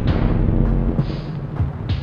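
Background music built on heavy low beats, a strike about once a second.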